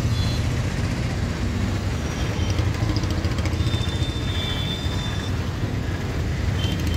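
Steady low rumble of heavy diesel vehicles: a bus running slowly through floodwater, with an excavator and a backhoe loader nearby, and a faint thin high tone near the middle.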